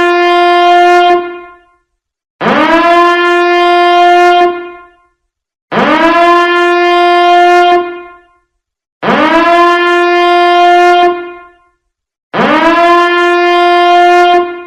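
Biohazard alarm sounding in repeated blasts, about one every three seconds: each swoops up in pitch at the start, holds one steady tone for about two and a half seconds, then stops for a short gap.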